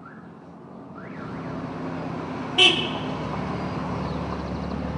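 A car driving past, its engine and tyre noise swelling about a second in, with one short, sharp, loud sound about halfway through.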